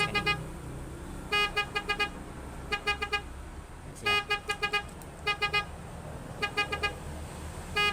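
Car alarm siren sounding a steady-pitched beep in repeated bursts of four to six short, rapid beeps, a burst a little more than once a second.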